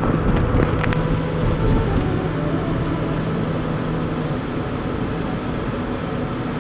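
Car engine running, a steady low hum over rumble and road or wind noise; the hum stops about two-thirds of the way through.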